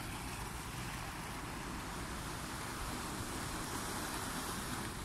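Small sea waves washing steadily against breakwater boulders, with wind rumbling on the microphone.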